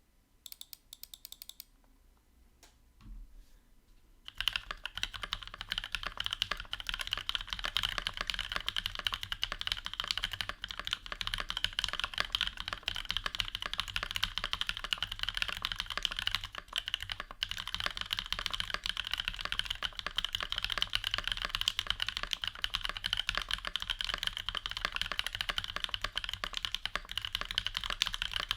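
A few scattered clicks, then from about four seconds in fast, continuous typing on a Discipline V1 65% mechanical keyboard with lubed Novelkeys Cream linear switches in a POM/acrylic sandwich case and GMK keycaps.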